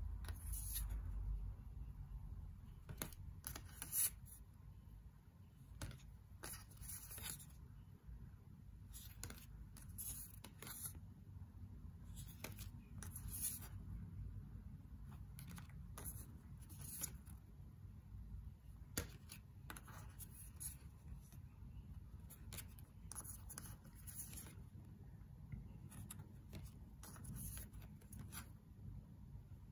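Tarot cards being flipped through by hand: thick matte cards slide and flick off the deck, making brief swishes and scrapes every second or so, over a low steady hum.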